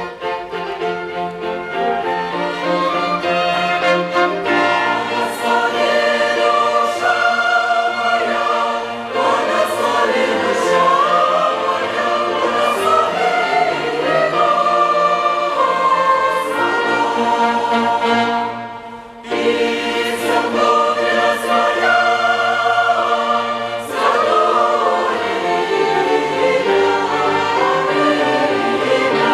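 Mixed church choir singing a hymn, accompanied by a string and wind orchestra. The music drops off briefly about two-thirds of the way through, then resumes.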